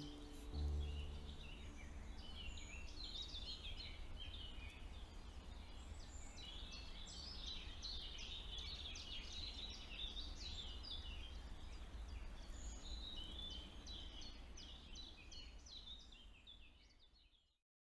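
Many small birds chirping and singing together over a low outdoor rumble, fading out just before the end.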